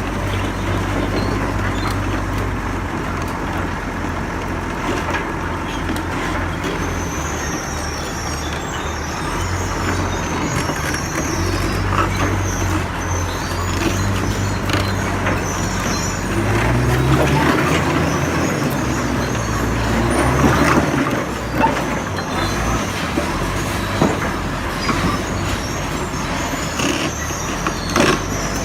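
Komatsu D85ESS bulldozer's diesel engine running, its revs rising and falling for a few seconds a little past halfway, with scattered metallic clanks.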